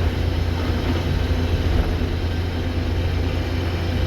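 Combine harvester running steadily while harvesting soybeans: a constant low engine drone with the even rumble of the threshing machinery.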